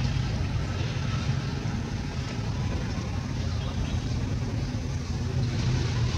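Steady low rumble throughout, with no distinct events standing out.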